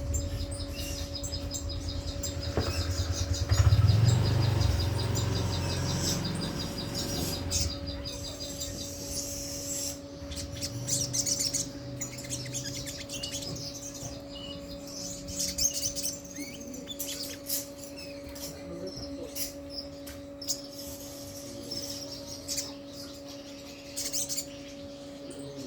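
Olive-backed sunbird (sogok ontong) calling: a rapid, even high trill for the first few seconds, then scattered sharp high chirps. A steady low hum runs underneath, with a low rumble early on.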